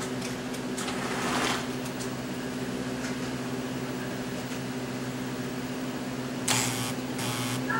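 Steady electric hum from a Lionel toy train layout running on AC power. A brief rush of noise comes about a second in, and a louder noisy burst starts near the end.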